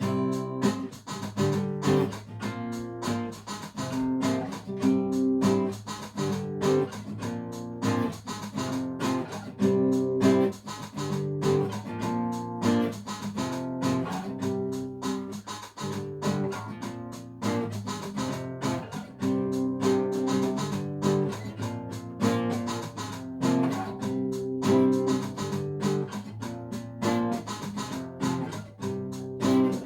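Guitar music: plucked and strummed notes in a steady, continuing rhythmic pattern.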